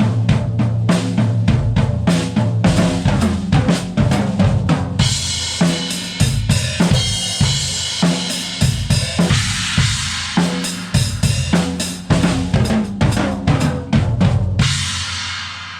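Tama Superstar Hyperdrive Maple drum kit with a Tama Starphonic Metal snare and Meinl Classics Custom Dark cymbals, played as a busy groove on bass drum, snare and cymbals. About five seconds in the cymbal wash thickens. Near the end the playing stops on a last cymbal crash left ringing and fading.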